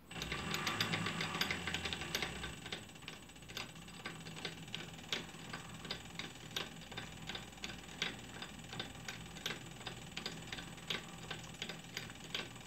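WM210V benchtop metal lathe starting up and running, spinning a four-jaw independent chuck. It starts suddenly and is loudest for the first couple of seconds, then settles into a steady run with light rhythmic ticking.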